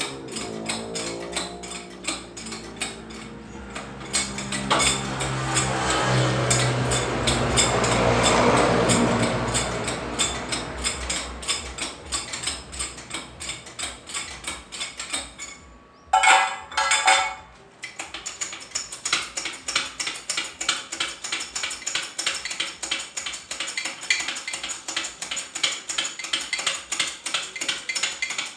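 Hand-tool work on a manual gearbox being taken apart: repeated metallic clicks and clinks of a ratchet and loose metal parts, with a short louder burst about halfway and quick regular clicking near the end.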